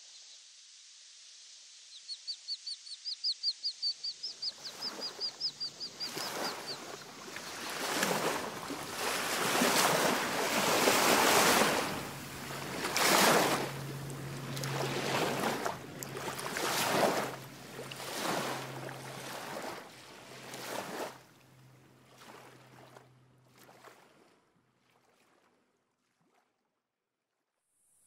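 A bird gives a rapid run of short, high chirps for a few seconds, about four or five a second. Then water washes and splashes against the shore in repeated surges, with a faint low hum beneath, dying away to near silence near the end.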